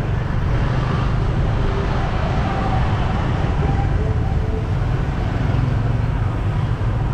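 Steady low rumble of a vehicle driving along a city street, with road and traffic noise around it.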